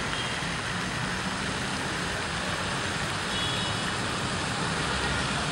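Steady outdoor street ambience: a continuous hiss and low rumble of road traffic at an even level.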